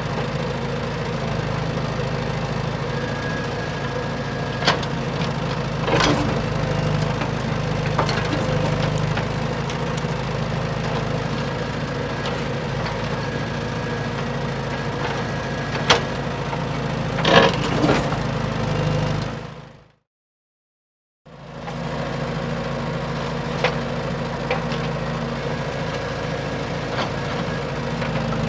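Steady mechanical hum from RC construction models running, with a few sharp clicks and knocks. The sound fades out for about a second a little past the middle, then returns.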